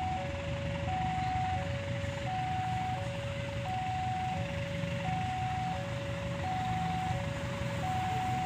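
Railway level-crossing warning alarm sounding an alternating two-tone ding-dong, a higher tone then a lower one, each about two-thirds of a second, repeating evenly. It signals that a train is approaching. A steady low rumble runs underneath.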